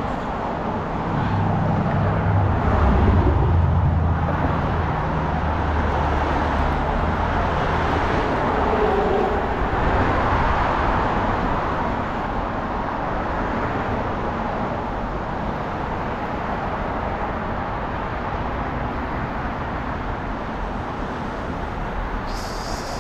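Street traffic going by: a vehicle's engine hum rises and passes in the first several seconds, loudest about three seconds in, and another car passes about ten seconds in, over a steady wash of road and tyre noise.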